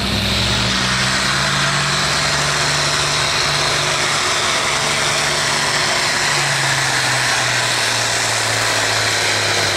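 Turbocharged diesel pulling tractor of the 8,500 lb A-pump class, its engine running flat out under load as it drags a weight-transfer sled down the track. A loud, steady engine note throughout.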